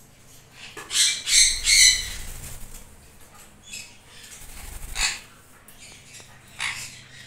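Sun conures squawking: a quick run of four or so loud, harsh screeches about a second in, then single shorter calls around the middle and near the end, with some wing flapping as the birds shift perches.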